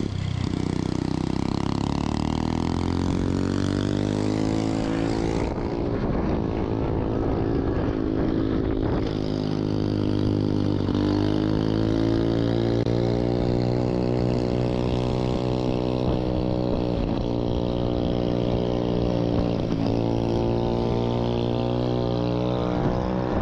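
Minibike's small petrol engine running as the bikes ride along, its pitch rising and falling with the throttle.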